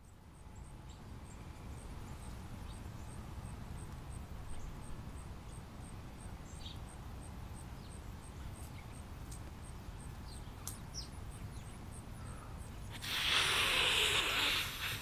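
Outdoor ambience: a steady low rumble with faint, scattered bird chirps, then a loud rushing hiss near the end lasting about two seconds.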